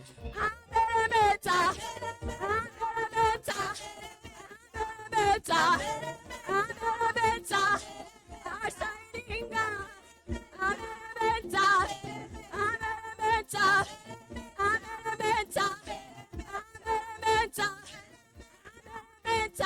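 Praise and worship music: a voice singing over instruments, with a beat about once a second.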